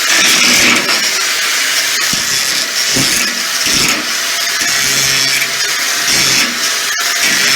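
Electric grinder running and grinding a groove into steel, a loud steady rasping hiss that rises and dips as the disc is pressed into the metal.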